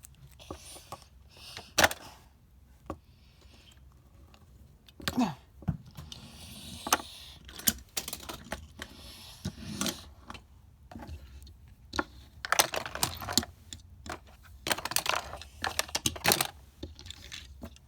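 Irregular sharp clicks and clatters of small hard objects being handled, with a few short hissing rustles between them.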